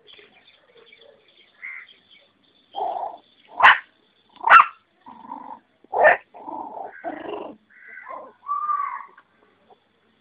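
Puppies yipping and growling as they play-fight. A run of short yaps and growls starts about three seconds in, and three sharp yips are the loudest.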